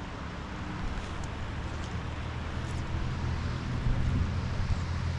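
Wind rumbling on the microphone over the steady rush of a river. The low rumble swells about halfway through.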